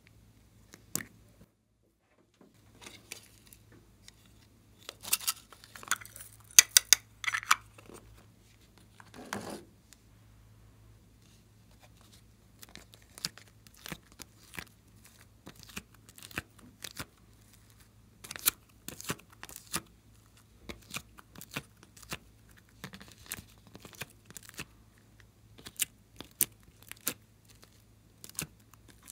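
Close handling of small plastic clay containers and a plastic mould tray: scattered sharp clicks and crackles, with a dense burst of crinkling a few seconds in. A faint low steady hum runs underneath.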